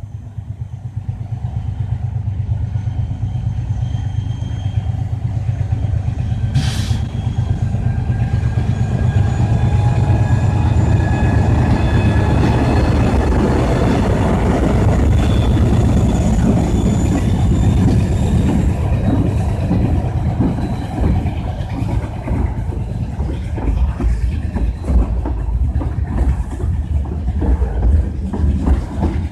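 A freight train passes on the rails: a heavy diesel-locomotive rumble builds over the first ten seconds, with thin high-pitched whining tones over it and a sharp crack about seven seconds in. In the second half the cars roll by with an irregular clickety-clack of wheels over the rail joints.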